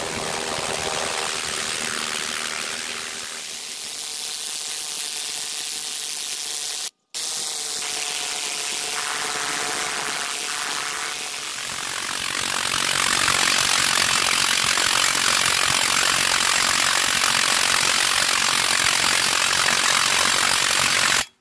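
Needle scaler hammering paint off a cast iron clock dial, a dense steady rattle. It breaks off for a moment about seven seconds in, grows much louder and harsher from about twelve seconds in, and stops abruptly just before the end.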